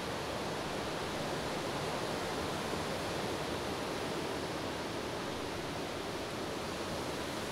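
Steady rushing noise of wind, even and unbroken throughout.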